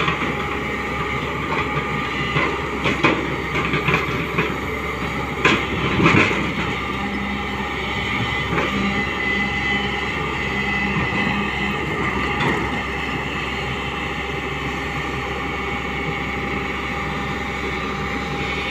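Hyundai 245LR long-reach excavator working, its engine and hydraulics giving a steady drone with several whining tones. Several short, sharp knocks come in the first six seconds.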